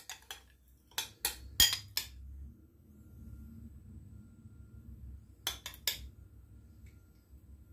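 A metal spoon clinking and scraping against a small ceramic bowl as vinaigrette is spooned out: several sharp clinks in the first two seconds, then three more about five and a half seconds in.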